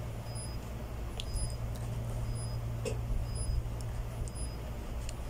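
Steady low hum of room noise with a few faint, short clicks from fingers tapping and clicking a laptop touchpad.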